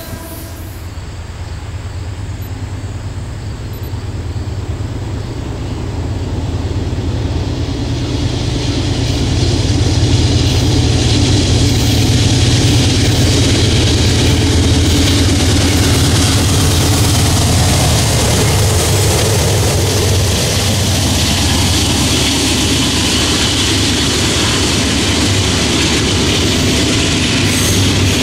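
Norfolk Southern double-stack intermodal freight train approaching and passing. The locomotive's diesel engine hum grows louder over the first ten seconds, then the container cars roll by with a steady noise of wheels on the rails.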